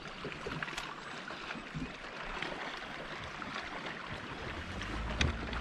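Small waves lapping against a boat hull under a steady hiss, with a few faint clicks; a low rumble builds near the end.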